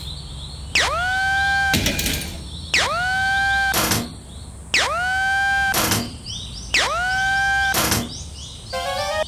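Cartoon sound effect played four times, about two seconds apart: a pitch that swoops down and settles into a held tone for about a second, each ending in a sharp click. A faint, fast high ringing runs underneath, and quick rising blips come near the end.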